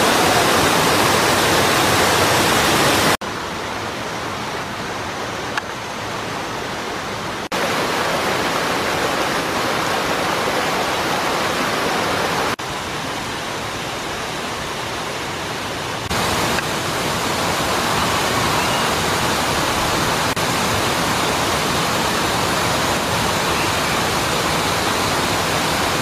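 Tall waterfall cascading over rock: a steady, loud rush of falling water. Its level steps abruptly down and back up a few times, about 3, 7, 12 and 16 seconds in.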